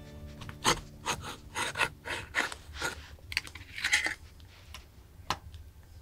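Knife blade stabbing and levering around the rim of a tin can to cut the lid open: a run of sharp metallic clicks and scrapes, roughly two a second, with a longer scrape about four seconds in.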